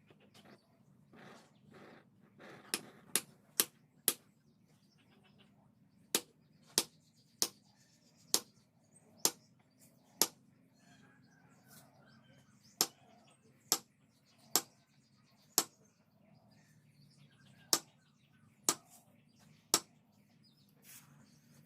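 Hammer blows on metal at a blacksmith's anvil: sharp, short strikes about one a second, coming in runs of three to five with short pauses between.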